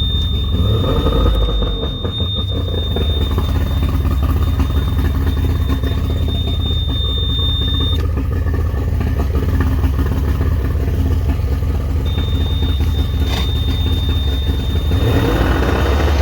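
2005 Tohatsu 40 hp outboard motor running on the water supply after a new impeller, idling steadily and revving up briefly about a second in and again near the end; the telltale is pumping strongly, a sign the new impeller works. A thin steady high-pitched whine sounds over it, stopping for a few seconds in the middle.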